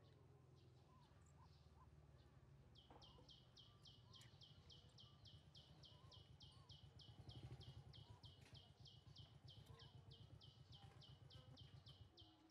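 A small animal's high chirping call, the same short note sliding downward and repeated about four times a second, starting about three seconds in and keeping on to the end. A faint low rumble lies beneath.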